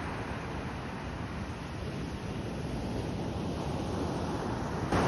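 Ocean surf washing in a steady rush, with wind noise on the microphone; it steps up louder just before the end.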